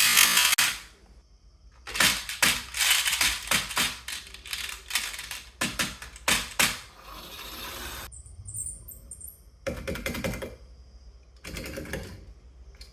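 Marbles clattering down a wooden marble run: a dense run of quick clicks and knocks for about five seconds, then two shorter bursts of clatter near the end.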